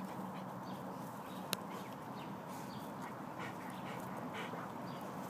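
Faint sounds of a Yorkshire terrier and a German shepherd play-fighting up close, with a sharp click about a second and a half in.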